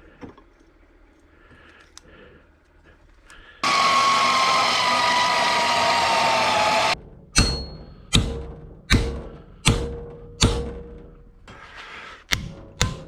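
A power tool runs for about three seconds, its whine sagging slightly in pitch, then stops abruptly. Then come sharp, ringing hammer blows on steel, about one a second at first, and a quicker run of blows near the end.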